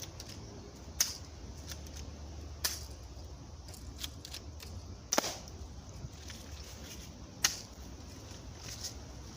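Airsoft gun firing single shots: four sharp cracks spaced one to two and a half seconds apart, with a few fainter ticks between them.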